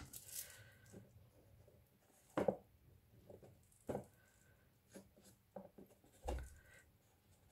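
Faint handling of a clear stamp: a handful of soft, separate taps and rubs as it is dabbed on an ink pad and pressed onto the edge of a plastic tub, with a duller thump about six seconds in.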